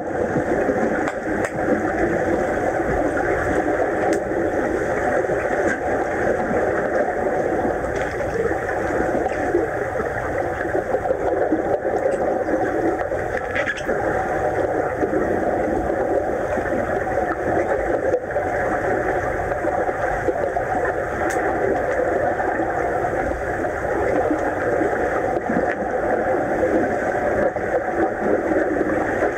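Swimming pool water heard from underwater: a steady, muffled rushing wash with a few faint clicks.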